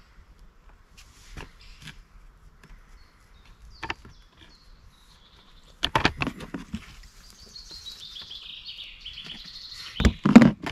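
Close handling noises of bait gear: scattered clicks, then a cluster of sharp rustles and knocks about six seconds in and the loudest ones near the end. A songbird sings a falling, warbling phrase in the background over the last few seconds.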